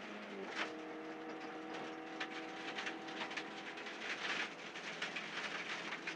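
Neon rally car heard from inside the cabin, its four-cylinder engine running at steady revs at speed on a gravel road, the engine note changing about half a second in. Loose gravel ticks and rattles against the car throughout.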